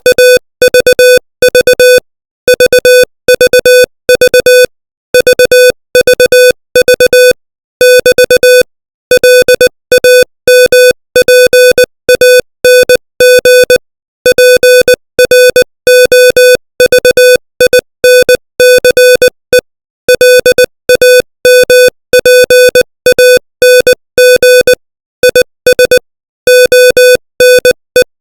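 Morse code sent at 20 words per minute: a single steady beep tone keyed on and off in short dots and longer dashes, with short gaps between letters and longer gaps between words.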